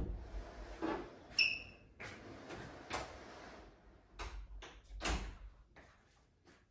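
Sliding door rattling and knocking on its track, with a short squeak about a second and a half in and a run of sharp clicks near the end.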